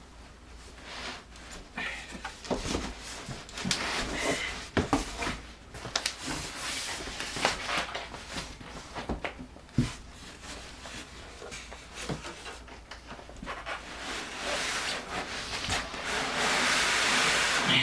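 Packing and cardboard box rubbing, rustling and knocking irregularly as a heavy sewing machine is worked out of its box, with a louder, steadier rustle near the end.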